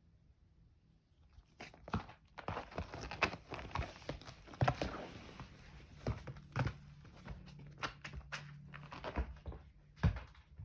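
A kitten rummaging among flowers and their wrapping: irregular rustling and crinkling with light knocks and taps.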